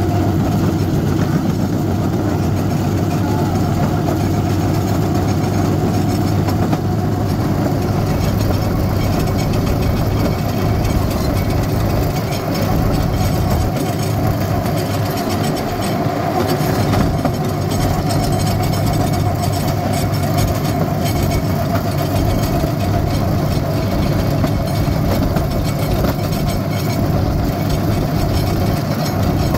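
Small engine of a rail cart (speeder) running steadily as the cart rolls along old railroad track, with a constant rattling from the wheels and frame.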